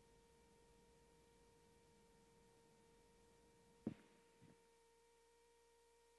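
Near silence with a faint, steady high tone. About four seconds in come two soft thumps, half a second apart.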